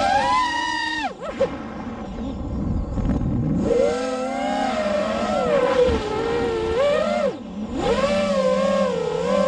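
6-inch FPV quadcopter's brushless motors and propellers whining, the pitch rising and falling with the throttle. The whine falls away for about two seconds after the first second and again briefly about seven seconds in.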